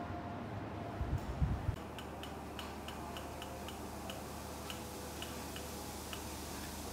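Light, sharp clicks, about three or four a second and unevenly spaced, from the voltage control knob of a BAUR SB 6 high-voltage test set being turned up to raise the test voltage, over a low steady hum. A few dull bumps come about a second in.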